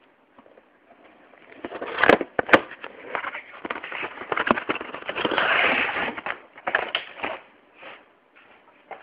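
Cardboard box and plastic packaging being handled and opened: crackling and rustling, with two sharp clicks about two seconds in and a denser stretch of rustling around the middle.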